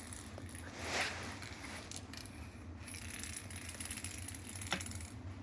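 Small plastic ball toy clicking and rattling on a hard vinyl floor as a cat bats it, with a brief scuffling burst about a second in and a sharp click near the end.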